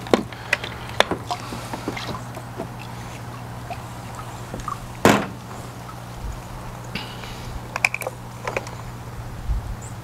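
Plastic clicks and knocks as a cordless robotic pool cleaner's housing is unlatched and its top shell and filter tray are lifted off, with a sharp knock about five seconds in and a few quick clicks near eight seconds. A steady low hum underlies it.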